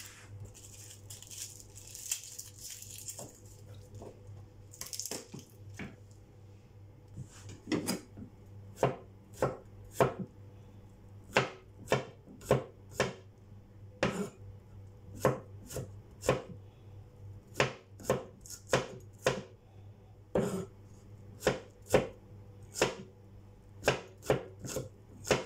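Chef's knife chopping garlic cloves on a wooden cutting board: sharp, separate knocks, roughly one to two a second. The knocks begin after several seconds of soft papery rustling as garlic cloves are peeled by hand.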